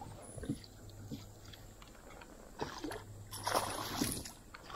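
Water splashing and sloshing at the side of a fishing kayak while a hooked bass is fought, loudest from about two and a half to four seconds in, with a few light knocks on the hull.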